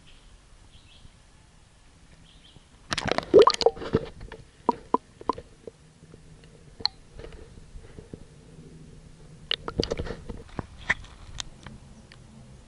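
Action camera being dipped into a swimming pool and lifted out again: a burst of splashing and crackling knocks against the camera about three seconds in, scattered clicks while it is under water, and a second burst of splashing around ten seconds in.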